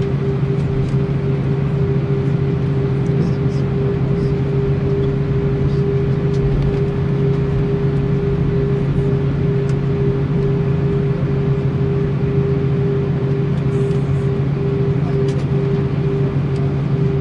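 Airbus A319's IAE V2522-A5 turbofan engines at low taxi power, heard from inside the cabin over the wing: a steady drone with a constant low hum and a higher steady tone, and a few faint light clicks and rattles.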